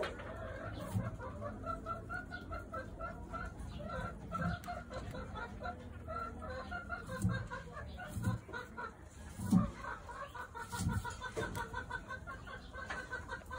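Chickens clucking steadily in a rapid run of short calls, with a few soft low thumps now and then.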